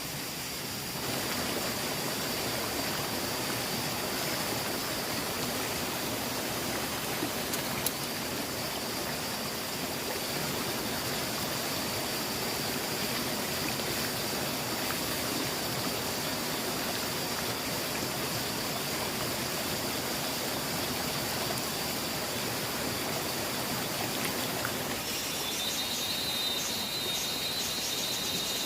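Steady rush of flowing water, like a forest stream, with a thin high-pitched whine over it that drops to a lower, pulsing tone near the end.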